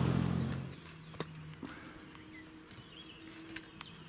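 Scattered taps of footsteps and a wooden walking stick on a stony track, with faint bird chirps. A low hum fades out in the first second.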